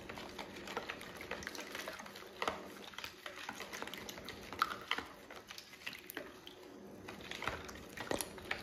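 A spoon stirring water with soup mix in a plastic bowl: liquid sloshing, with many small clicks and scrapes of the spoon against the bowl.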